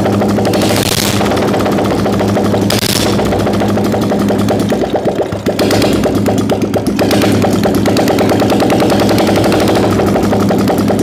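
Royal Enfield single-cylinder engine running steadily at idle with its rocker covers removed, so the rocker arms and valve gear clatter in the open. It is being run to pump the fresh engine oil up to the valve gear after an engine flush.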